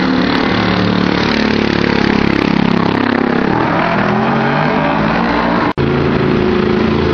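GT race car engines running loud at a circuit, their pitch rising and falling as cars pass and accelerate. The sound breaks off abruptly for an instant about three-quarters of the way through, then the engine noise carries on.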